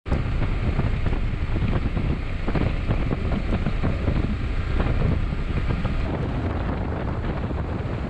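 Wind rushing over the camera microphone on a Honda NC750X motorcycle riding at road speed, a steady low rumble of wind and road noise.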